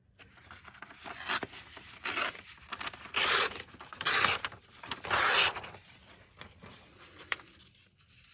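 Thin patterned paper being torn by hand along its edge in several short rips, roughening the edge so that it looks torn rather than cut straight.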